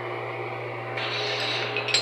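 Steady electrical hum with tool handling at an AC compressor: a steel rod shifting against the compressor's clutch hub. The rubbing noise rises about a second in, and a short metallic clink comes near the end.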